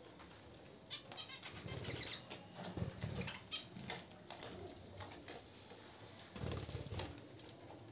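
Budgerigars fluttering and moving about in a wire cage: bursts of wing flapping and scuffling, with a few short chirps, loudest around three seconds in and again near seven seconds.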